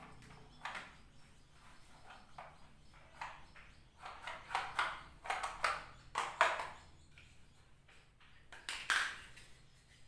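Plastic vacuum-cleaner wand and ribbed hose knocking and scraping as they are handled and fitted together: a string of short rattles, busiest in the middle and again near the end. The machine is not running.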